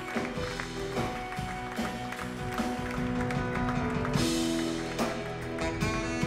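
Instrumental music with sustained held tones over scattered struck notes, and a rushing swell about four seconds in.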